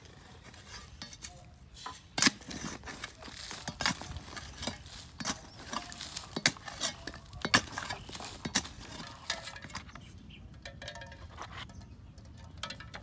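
Long metal digging bar jabbed repeatedly into hard, dry soil, each stroke a sharp thud with a metallic clink, about one a second. The strikes thin out about ten seconds in.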